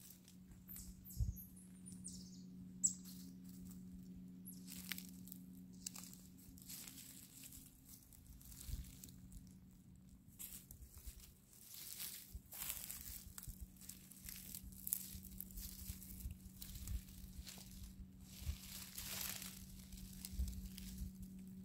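Dry pine needles and fallen leaves rustling and crackling in irregular bursts, over a faint steady low hum. About two seconds in there is a short run of very high squeaks, falling in pitch.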